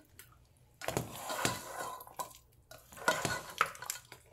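A spoon stirring and scraping chunks of beef, tomato and whole spices around a pot. A few light knocks of the utensil against the pot follow.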